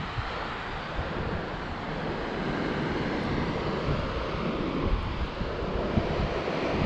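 Steady rushing noise with wind buffeting the microphone in uneven low gusts.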